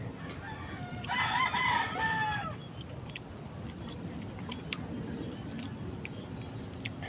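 A rooster crowing once, about a second and a half long, its pitch dropping at the end. Scattered faint clicks follow.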